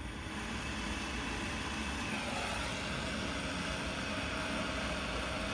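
Gas soldering torch flame burning with a steady hiss, growing louder over the first second or so, as it heats a copper frame for soldering.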